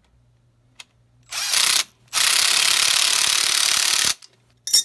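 Ratchet wrench spun rapidly, running in a bolt on a blower motor's mounting band: a short burst of fast clicking, then a longer run of about two seconds, and a brief one near the end.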